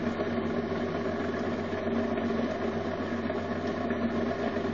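Bedini SSG motor running: its 17-inch bike wheel carrying magnets spins fast past three pulsed coils, making a steady mechanical hum.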